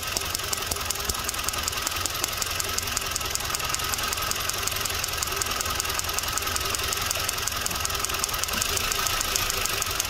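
Kia Soul four-cylinder engine idling, with a fast, regular ticking of spark snapping across the gap of an inline spark tester clipped to an ignition coil during a misfire diagnosis.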